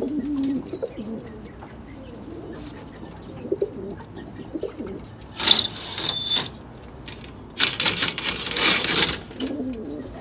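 Domestic pigeons cooing in low, gliding coos, broken in the second half by two loud rustling bursts about a second long each, one after the other.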